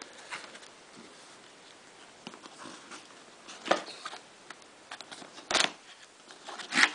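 A cardboard retail box being handled and turned over by hand: soft rustling and scraping, with a few louder short scrapes or knocks, the loudest about two-thirds of the way through and again near the end.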